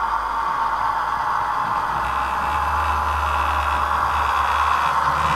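H0-scale model train running on the layout's track: a steady whirring rolling noise from motor and wheels, with a low hum joining about two seconds in.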